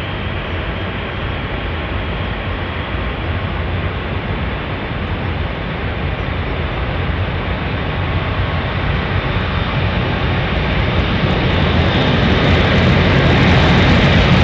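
Boeing B-52H Stratofortress's eight Pratt & Whitney TF33 turbofan engines at takeoff thrust, a continuous jet roar with deep rumble. It grows steadily louder as the bomber comes down the runway on its takeoff roll.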